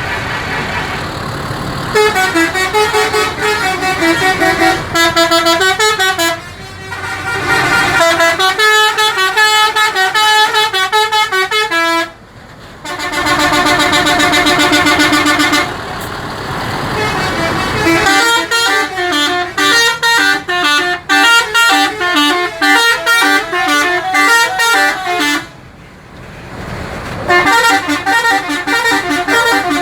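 Bus 'telolet' horns, multi-trumpet air horns, playing quick tooting melodies in several bursts with short pauses between them. One chord is held for a few seconds near the middle.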